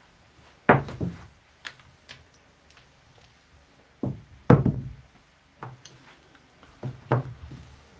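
Scattered sharp knocks and clacks of handling at a craps table: chips being set down and the wooden stick working the layout and rail. About nine separate knocks, the loudest two close together around the middle.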